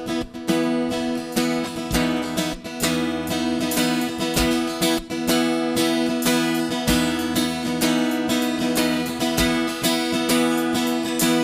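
Instrumental music intro led by strummed acoustic guitar, with steady rhythmic strokes over held chords.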